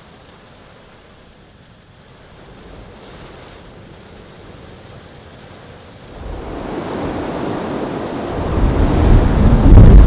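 Storm wind gusting, starting as a low rush and building to heavy wind buffeting on the microphone over the last few seconds.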